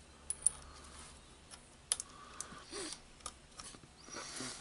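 Light clicks and taps of the small metal blade-holder parts of a Makita reciprocating saw being handled and fitted together, with a few soft rustles of handling.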